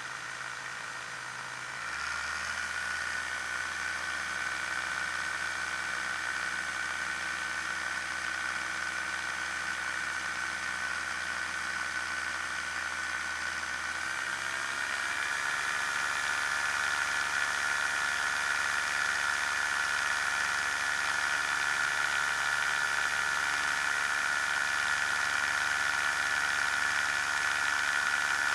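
Challenger II ultralight's engine and propeller running steadily at power. The engine steps up in pitch and loudness about two seconds in and again about halfway, as the ski-equipped plane climbs away from the snow.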